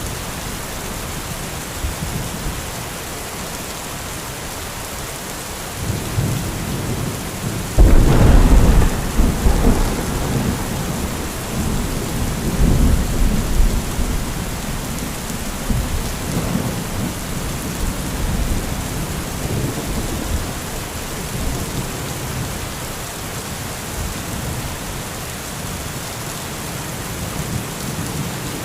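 Heavy rain falling steadily, with thunder: a low rumble builds, then a sudden loud thunderclap about eight seconds in rolls on for several seconds, followed by fainter rumbles.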